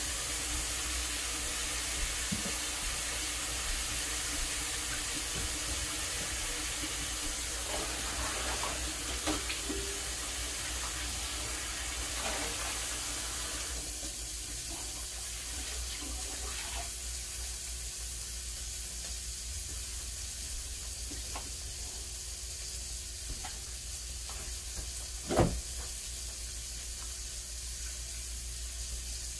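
Steady sizzling hiss of food cooking in a pan on an electric stove, easing about halfway through, with a single sharp knock near the end.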